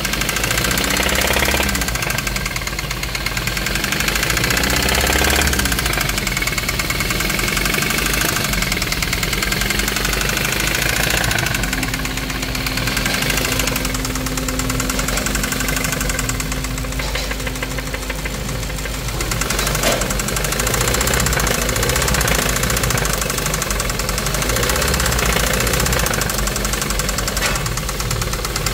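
2017 Hyundai Kona's 1.6 T-GDI turbocharged gasoline engine running with a loud, rapid 'tak-tak-tak' clatter that sounds like a diesel. The owner takes it for a fault and links it to neglected engine oil changes.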